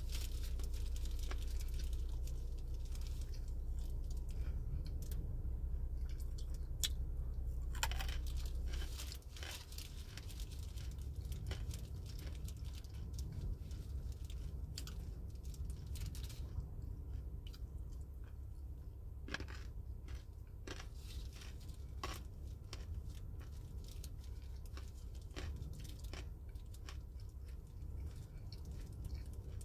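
Close-up chewing of crunchy food, with scattered sharp crunches and crackles between stretches of quieter chewing. A steady low hum runs underneath and eases about nine seconds in.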